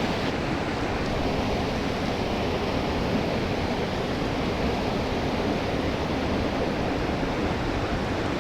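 Water of a small creek rushing, a steady even noise.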